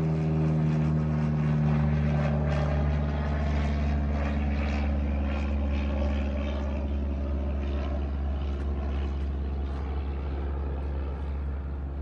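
Light propeller airplane flying overhead, its engine a steady drone that slowly fades.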